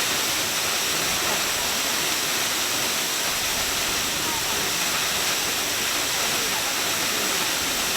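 Waterfall rushing with a steady, even noise of falling water, with faint voices in the background.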